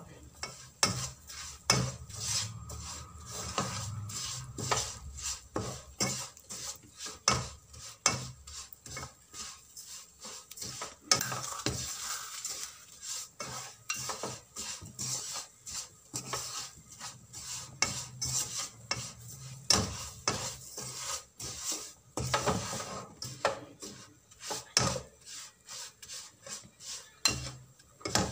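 Wooden spoon scraping and knocking on a non-stick frying pan as it stirs a dry, crumbly semolina and coconut mixture, with many irregular taps and scrapes.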